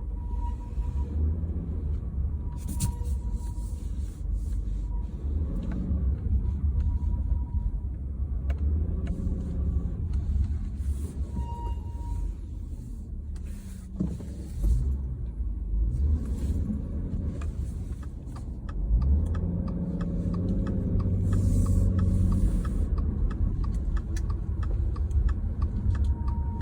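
Cabin noise of a 2018 Subaru Legacy on the move: steady low road and drivetrain rumble, broken by scattered short squeaks and clicks, which the owner links to the car's transmission replacement.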